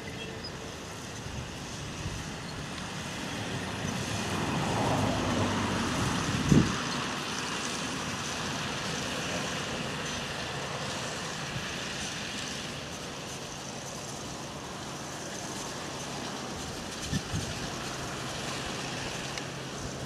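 New Holland T7.270 tractor's diesel engine running steadily under load while pulling a five-furrow plough through the soil. It grows louder about four to six seconds in, with a sharp thump about six and a half seconds in and two lighter knocks near the end.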